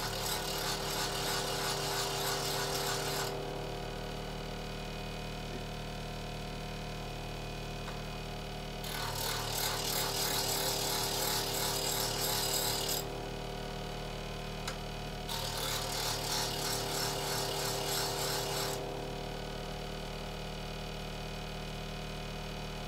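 Bench grinder motor running with a steady hum while the steel bevel of a single-bevel edge tool is ground against the wheel in three passes of a few seconds each, with only the motor hum between passes. The first pass ends about three seconds in, the second runs from about nine to thirteen seconds, and the third from about fifteen to nineteen seconds.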